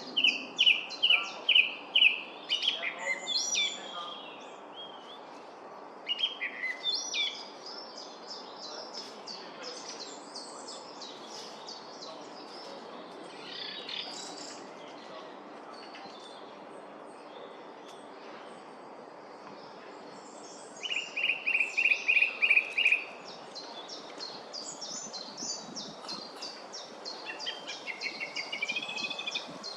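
Song thrush singing, repeating each short phrase several times over: loud runs of repeated notes near the start and again about two-thirds of the way through. Fainter, higher, quick notes fill the gaps between.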